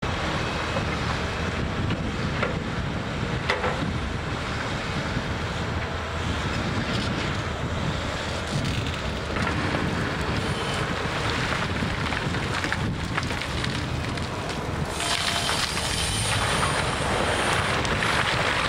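Åkerman tracked excavator running as it reshapes a rock breakwater, with wind on the microphone; a louder hiss comes in about three-quarters of the way through.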